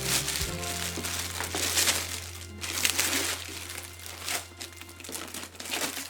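Packaging crinkling and rustling in irregular bursts as a new coffee maker is unwrapped, over background music with a held low note.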